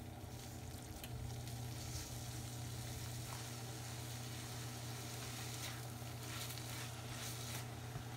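Grated carrot and milk-powder mixture sizzling in a wok on low heat, roasting for carrot barfi, while a silicone spatula stirs and scrapes it round the pan with several louder scraping strokes. A steady low hum runs underneath.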